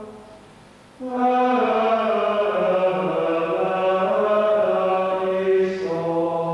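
Slow, chant-like singing in long held notes. A phrase fades out at the start, and about a second in a new phrase begins, its notes stepping slowly downward.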